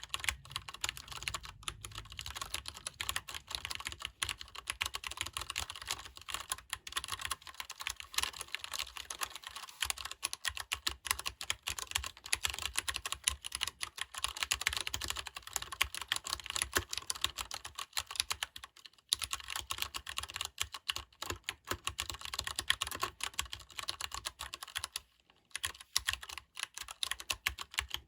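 Continuous fast typing on a Leopold FC750R PD tenkeyless mechanical keyboard with Cherry MX Brown switches: the soft, non-clicky clatter of tactile switches, keys bottoming out in quick succession, with brief pauses about two-thirds of the way through and near the end.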